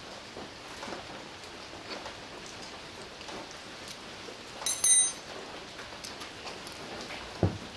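Small clicks and rustles of an Allen key and fingers as the screws come out and a motorcycle sidestand switch is taken off. A sharp metallic clink that rings briefly comes a little under five seconds in, and a short dull thump near the end.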